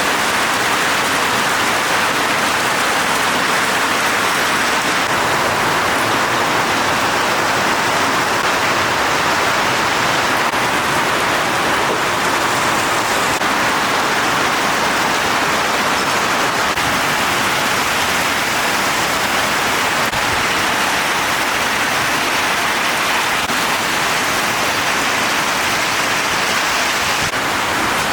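Heavy rain falling, a loud, steady, even downpour.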